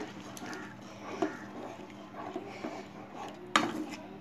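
Wooden spatula stirring masala gravy in a kadai, scraping and tapping against the pan, with one sharper knock about three and a half seconds in. The masala has just been thinned with a little water.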